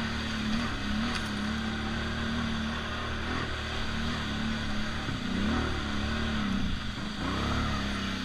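ATV engine running steadily while riding over a rough dirt trail, its pitch dipping and rising a few times in the second half.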